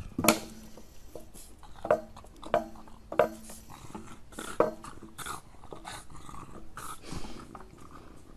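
A small dog giving a run of short vocal sounds, about eight separate bursts at uneven intervals.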